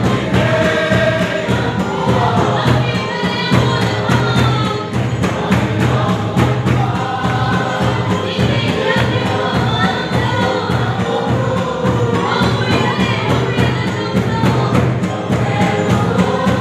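A congregation singing a lively gospel worship song together as a choir, over a steady beat and a low accompaniment.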